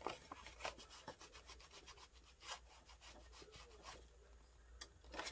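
Faint rubbing and scratching of folded scrapbook paper being handled, with scattered small clicks as a wooden-handled punch is pressed against the paper edge.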